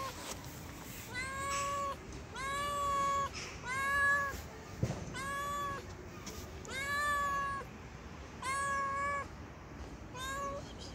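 Young tabby-and-white cat meowing over and over: about seven drawn-out, fairly level meows, roughly a second and a half apart. A short thump sounds near the middle.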